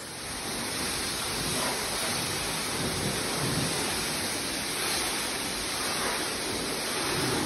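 High-pressure water from a car wash spray wand hitting a car, a steady hissing rush that swells up in the first second and then holds.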